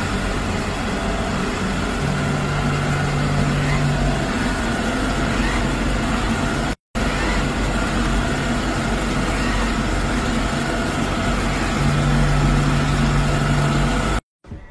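Samsung robot vacuum running with a loud, steady whir. A low hum joins in twice, for about two seconds each time, and the sound drops out for an instant about halfway through.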